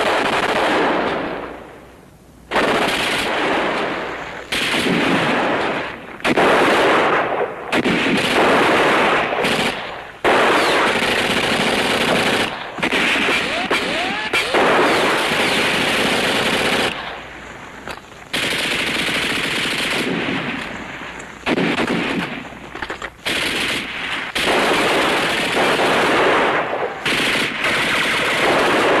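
A sustained firefight: repeated machine-gun bursts and rifle fire, each burst lasting one to a few seconds, with short breaks between them.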